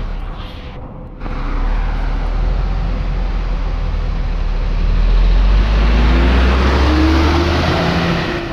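Coach bus engine running at the roadside, then revving up with a rising engine note as the bus pulls away, about five seconds in.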